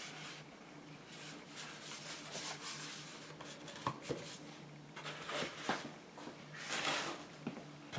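Handling noise from a DJI Goggles headset being turned over and rubbed in the hands: soft rustling and rubbing swishes, with two small clicks about four seconds in.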